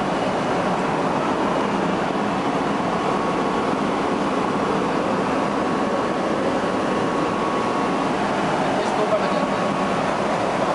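Hydraulic aft mooring winch running: a steady rushing noise with a faint steady whine. It is driven through a temporary pipe connection from the cargo-hold hydraulic pump because the winch's own hydraulic pump has failed.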